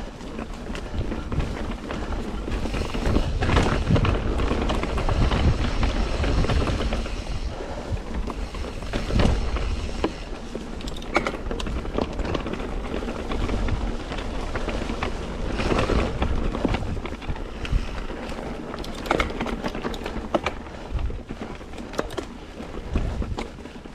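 A mountain bike ridden along a dirt singletrack: wind rushing over the rider-mounted microphone, with tyres rolling over dirt and the bike knocking and rattling over bumps.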